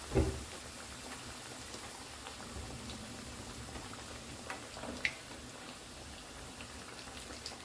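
Hot oil in a kadhai bubbling and sizzling steadily as a batch of fried chicken tenders drains above it on a metal slotted spoon, with a soft knock just after the start and a few faint clicks.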